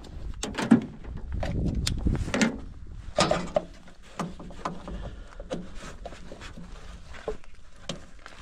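Irregular knocks, clicks and footsteps, with a low rumble underneath.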